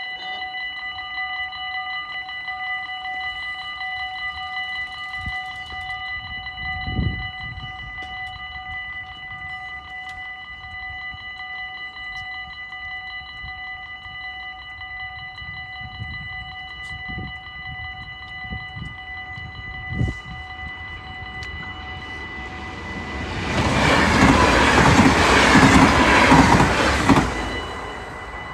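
Level crossing warning bell ringing steadily. About 23 seconds in, a train rushes through the crossing with a loud rush of wheel and air noise, which dies away about four seconds later.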